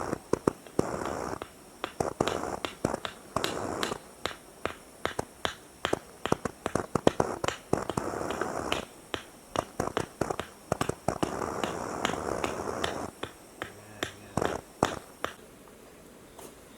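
Wood campfire crackling, with many irregular sharp pops that stop a little before the end.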